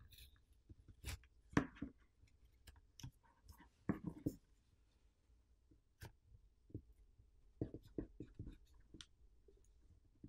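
Plastic pry pick clicking and scraping along the edge of a Poco X6 5G's plastic back plate as the plate is pried off its adhesive. Faint, irregular clicks, with a few short scrapes about a second and a half in and again around four seconds.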